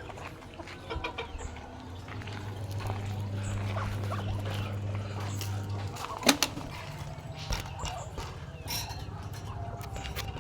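Chickens clucking, with scattered short taps and one sharp knock about six seconds in; a low hum runs under the first half.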